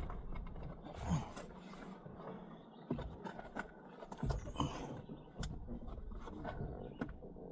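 Plastic car door trim panel being pulled and pried at, with scattered clicks, scrapes and knocks as its retaining clips hold fast.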